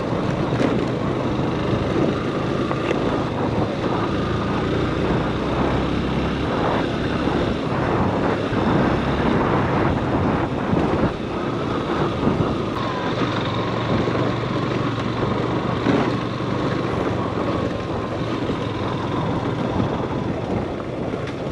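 Motorcycle engine running steadily while riding a rough dirt road, with a continuous rush of wind and road noise over it.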